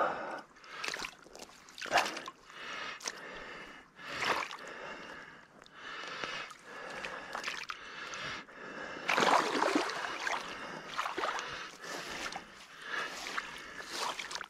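A boot stepping and pressing into wet mud and shallow creek water, squelching and splashing in irregular strokes as mud is worked down by foot.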